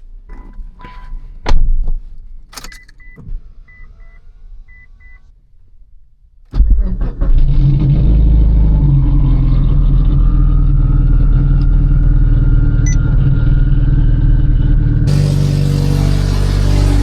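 Keys jingling, clicks and a few short electronic beeps, then a Mitsubishi Lancer Evolution IX's turbocharged 4G63 four-cylinder starts suddenly about six and a half seconds in and settles into a loud, steady idle, with a faint whine rising slowly in pitch. Near the end a steady hiss joins it.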